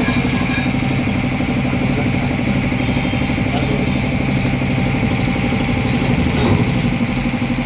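An engine idling steadily with an even, fast pulse.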